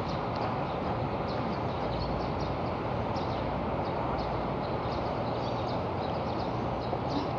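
Steady low outdoor background rumble of urban surroundings, with faint, scattered high chirps of small birds throughout.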